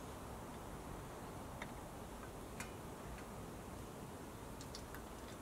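A handful of faint, scattered clicks from the telescope's mount and dovetail rail being handled while the telescope is slid into balance, over a steady low hiss.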